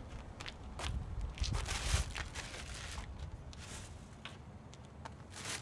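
Footsteps on pavement and the crinkle of wrapper litter being picked up and dropped into a plastic trash can, with scattered short clicks. A low wind rumble on the microphone fades after about two seconds.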